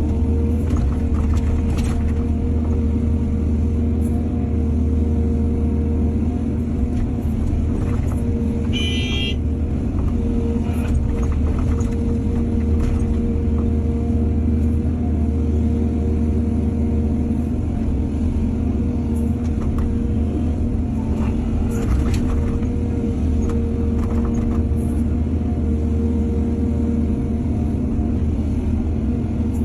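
Heavy diesel engine of an excavator running steadily at working revs, with occasional knocks and a brief high-pitched squeal about nine seconds in.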